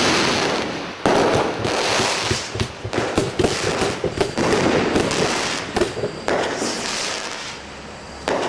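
Fireworks display: loud bursts at the start and about a second in, followed by dense crackling that thins out after about six seconds.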